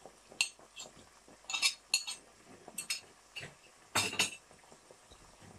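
A cooking utensil knocking and clinking against a karahi (wok) about eight to ten times at an irregular pace, the loudest knock about four seconds in, as ginger-garlic paste goes in on top of fried chicken.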